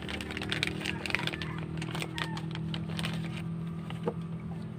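Crinkling and rustling of a small clear plastic bag as a plastic gun sight is pulled out of it, with light clicks and crackles, mostly in the first three seconds or so. A low steady hum runs underneath.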